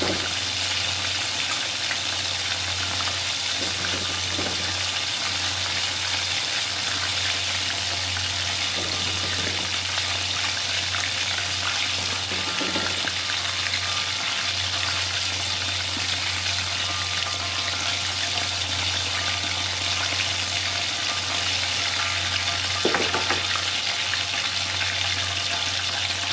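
Battered chicken pieces deep-frying in hot oil in an aluminium wok: a steady sizzle, over a low steady hum.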